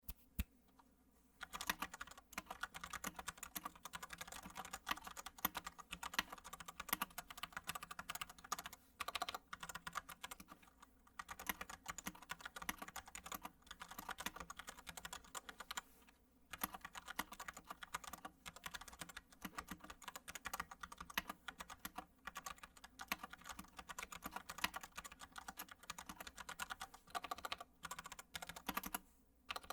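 Typing on a mechanical keyboard with stock, unlubricated Gateron Yellow linear switches: a fast, continuous run of key clacks, with a few short pauses. The typing starts about a second and a half in.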